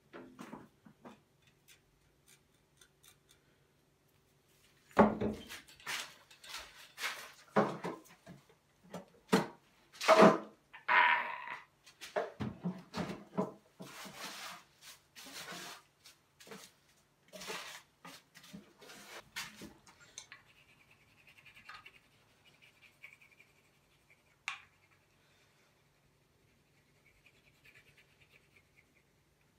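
Clattering and knocking of hand tools being dug out of a wooden tool chest that is full of plane shavings, mixed with a man's frustrated wordless noise, from about five seconds in to about twenty. After that only faint scattered sounds.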